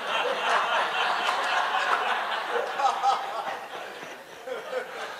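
Audience laughing together, many voices at once, dying down after about four seconds.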